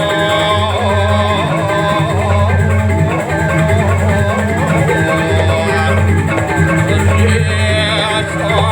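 Balinese gamelan music accompanying a joged pingitan dance: mallet-struck keyed percussion playing a continuous interlocking melody over a low sustained pulse, with a wavering melody line above.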